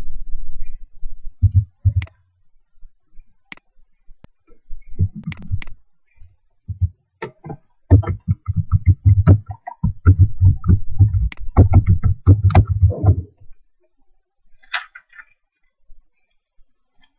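Typing on a laptop keyboard: a few short runs of dull keystrokes in the first half, then a fast, steady run of typing lasting about five seconds past the middle, with a few sharp clicks mixed in.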